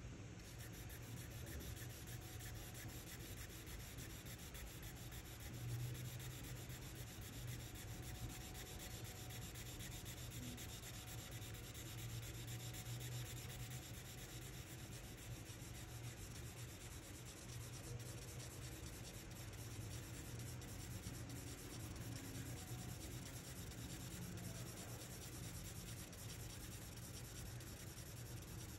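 Charcoal scratching and rubbing on drawing paper in quick, continuous back-and-forth shading strokes.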